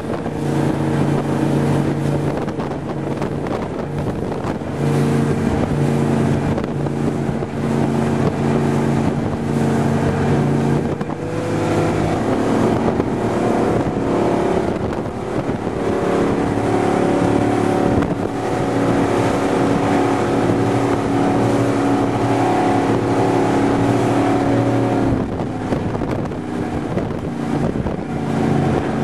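Raider 26 powerboat's 460 cubic-inch Ford big-block V8 running hard at speed, heard from on board, with wind buffeting the microphone. The engine note changes about eleven seconds in and again near the end.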